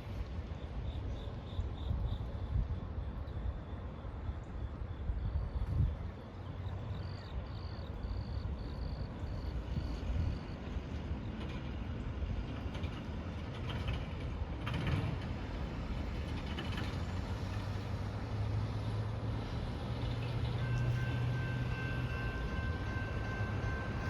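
Low, steady rumble of a passing vehicle or train, with faint high beeping repeated about twice a second in two short spells and a steady high tone coming in near the end.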